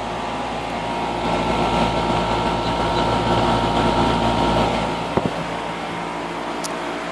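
A machine running steadily, a hum of several even tones that grows louder for about four seconds in the middle; two quick knocks come about five seconds in.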